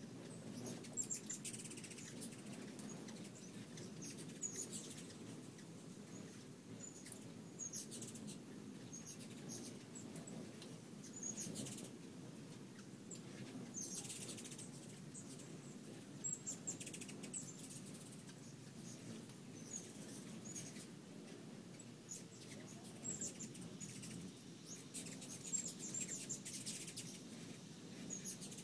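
Hummingbirds at feeders giving short, very high, squeaky chip and chatter calls, scattered irregularly throughout, over a faint steady low background hum.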